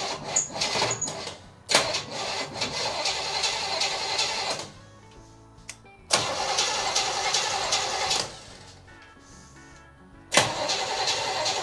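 1965 Chevrolet El Camino engine catching and running roughly for two to three seconds at a time, three times, each run starting and stopping suddenly. It runs only on fuel poured into the carburetor because no fuel is reaching the fuel pump. Background music fills the gaps between runs.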